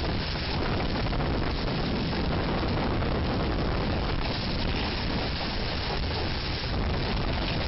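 Tornado winds tearing through a school hallway: a loud, steady rushing noise with no let-up.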